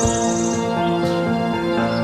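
Calm background music with long held tones, with birds chirping over it: a rapid high trill that fades out about half a second in, then a few short chirps.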